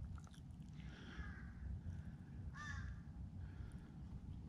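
Crows cawing faintly, a few separate calls, the loudest about two and a half seconds in, over a low steady rumble.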